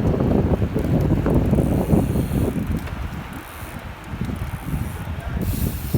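Wind buffeting the microphone of a moving bicycle rider, a dense low rumble that eases off about halfway through.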